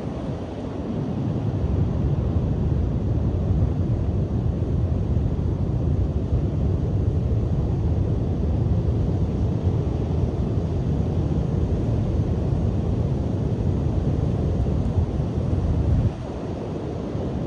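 Strong wind buffeting the microphone as a steady low rumble over the wash of sea surf breaking on the shore, easing suddenly about sixteen seconds in.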